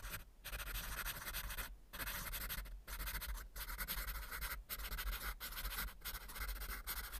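Faint, steady hiss with a low hum, cutting out briefly about once a second: the recording's own background noise.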